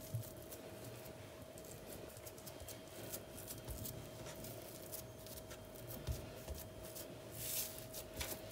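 Hands rolling and pressing a log of semolina makrout dough around its date filling on a countertop: faint soft rubbing and light taps, with a brief louder rustle near the end. A faint steady hum runs underneath.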